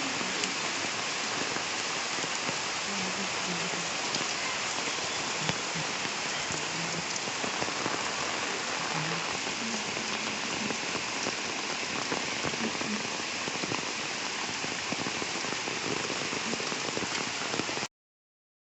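Heavy rain falling steadily, an even hiss that cuts off suddenly near the end.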